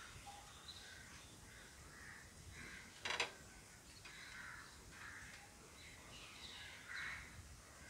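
Faint bird calls with one louder, harsh call about three seconds in.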